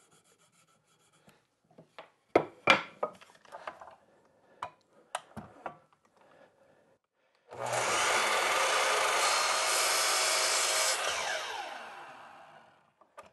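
A few light knocks as a board is set against the saw, then a sliding miter saw starts about seven and a half seconds in and runs steadily for about three seconds while its carbide-tipped blade grazes the end of the board, shaving off a hair. It is then switched off and the blade winds down with a falling pitch.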